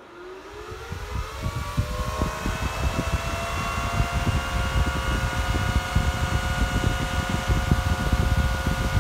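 Antminer S9's Aavid Thermalloy 12 V cooling fan, fitted with a 5-inch shroud, spinning up. A whine rises in pitch over the first two or three seconds, then holds steady at full speed with a loud rush of air. The fan's airflow buffets the microphone as wind rumble.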